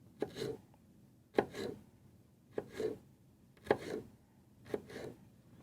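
Knife cutting a red pepper into strips on a cutting board: five separate cuts, about one a second.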